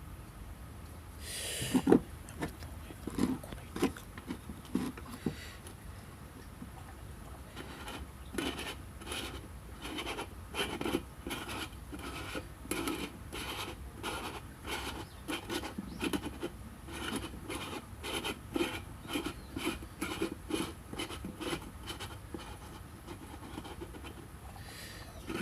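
Repeated rasping strokes of a hand tool working a part, about two a second, after a sharp knock and a few scattered scrapes near the start.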